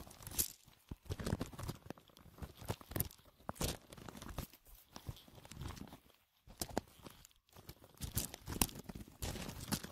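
Footsteps crunching and rustling through dry leaf litter and undergrowth, an irregular run of crackles.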